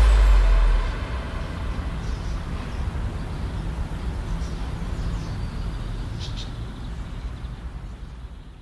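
Outdoor ambience: a loud low sound cuts off about a second in, leaving a low steady rumble with a few faint bird chirps, fading out near the end.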